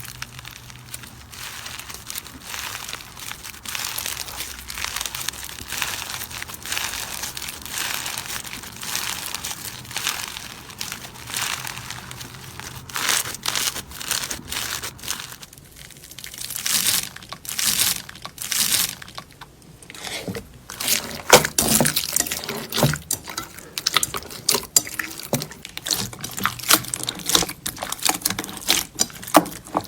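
Slime being squeezed and worked by hand, making irregular wet crackling and popping, with sharper clicks coming thicker in the second half.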